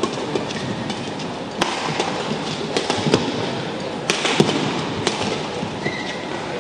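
A badminton rally: about six sharp racket-on-shuttlecock hits, irregularly spaced and some less than half a second apart, over the steady noise of an indoor arena, with a brief high squeak near the end.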